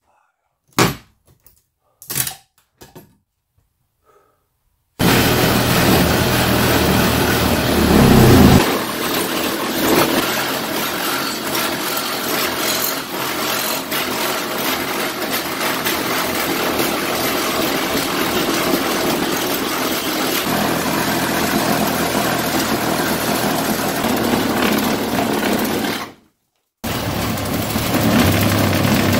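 A few sharp knocks as a wooden door-jamb board is worked loose. Then a handheld power saw starts about five seconds in and runs steadily, cutting through the wooden door frame. It stops briefly near the end and starts again.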